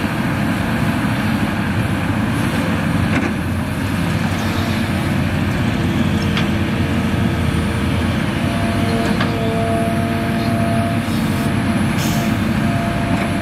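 Hitachi Zaxis 350H crawler excavator's diesel engine running steadily under load as it digs and swings soil. A steady whine comes in about eight seconds in, and there are a few light knocks.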